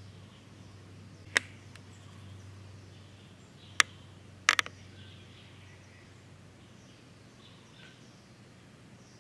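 Sharp clicks over a steady low hum with faint bird chirps: a single click about a second and a half in, another near four seconds, then a quick run of three about half a second later.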